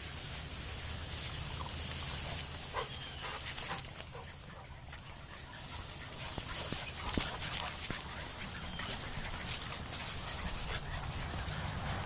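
Labrador retriever puppies giving a few short, high whimpers and squeaks while they scramble through grass and brush, with rustling and scuffling underfoot.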